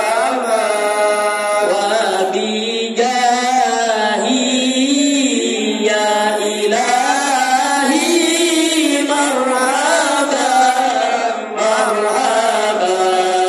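A congregation of men chanting Islamic devotional verses together in unison. It is a slow melodic chant whose pitch rises and falls in long held phrases, with no break.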